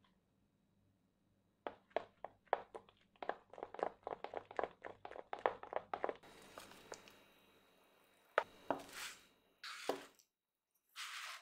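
Metal spoon stirring thick cocoa cake batter in a small plastic bowl, a quick run of taps and scrapes against the bowl, about four or five a second. Near the end come a couple of sharp knocks and a rustle.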